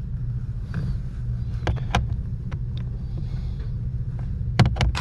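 Scattered sharp clicks and taps of a hand tool and metal screw as the mounting screws of a Honda HR-V's blower motor are undone, over a steady low rumble. The clicks come singly at first, then in a quick cluster of three near the end.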